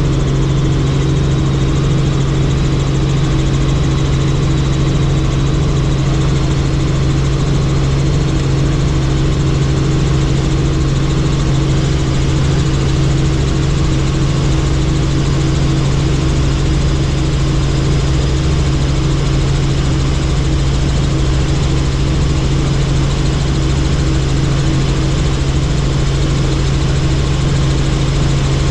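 Helicopter engine and rotor running, a loud, steady, unchanging drone with a strong low hum.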